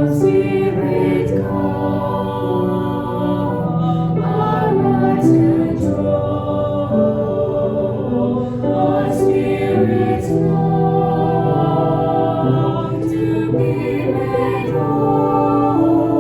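A choir singing a slow hymn in harmony, voices holding long notes.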